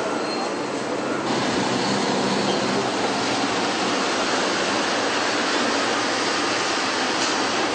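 Steady, loud rushing din of a truck factory hall, with no distinct tones or knocks; its upper hiss shifts about a second in.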